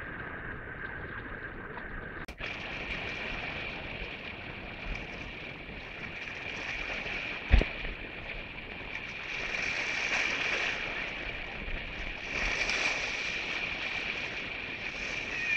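Sea surf washing against a rocky breakwater, with wind on the microphone; the surf swells about ten and again about twelve and a half seconds in. A single sharp knock about seven and a half seconds in.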